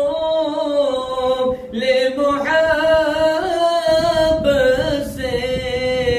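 Male voice singing an Urdu naat, drawing out long held notes that waver and slide up and down in pitch.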